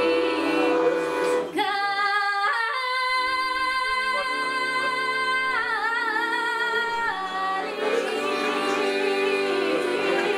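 A woman singing a folk song to a Weltmeister piano accordion. About one and a half seconds in she begins a long held note, with a wavering ornament in the middle of the phrase.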